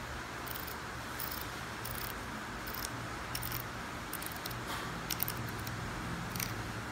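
Small, light clicks and ticks from a CNC Q5 tattoo pen's grip and body being turned and handled in the hands, about ten scattered through, over a steady low background hum.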